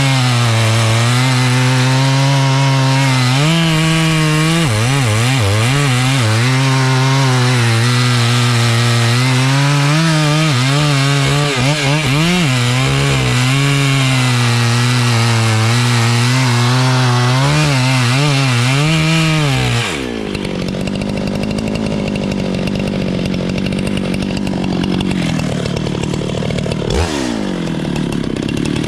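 Chainsaw running at full throttle and cutting wood, its engine pitch dipping and recovering several times as the chain loads in the cut. About two-thirds of the way through the sound changes abruptly to a quieter, duller running saw, with the pitch falling once near the end.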